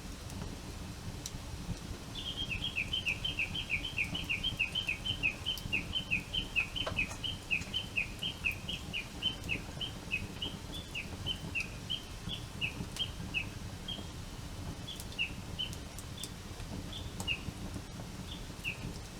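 A bird calling in a long series of short, downward-slurred chirps in alternating high and low notes, rapid at first, then slowing and thinning out toward the end. A steady low rumble of background noise runs underneath.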